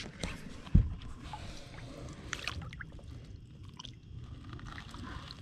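Small splashes and water sloshing as a bass is lowered by hand into a lake and released, with a dull thump about a second in.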